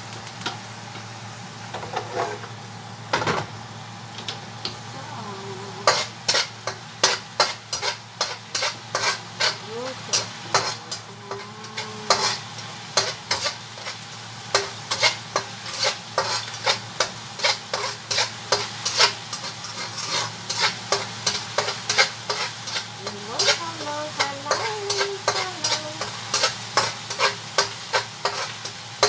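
A cooking utensil stirring and scraping against a stainless-steel pan of sizzling food, clacking about three times a second from about six seconds in, over a steady low hum.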